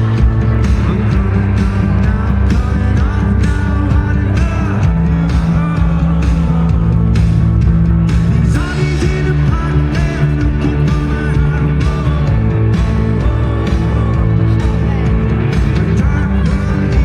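Indie rock band playing live: lead vocal over guitars, bass and drums, loud and continuous.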